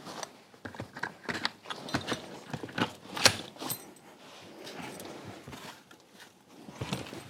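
Handling of stroller parts and their packaging: irregular clicks, knocks and rustling, with the sharpest knock about three seconds in.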